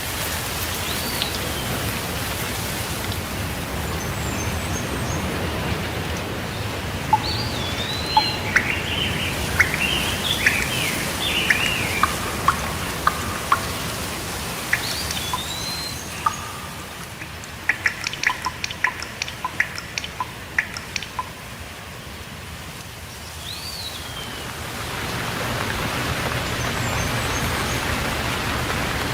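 Steady rain with birds calling over it: a short whistled call that rises and falls, repeated every several seconds, and a flurry of chirps in the middle. A run of sharp ticks follows, while the rain eases for a few seconds and then builds up again near the end.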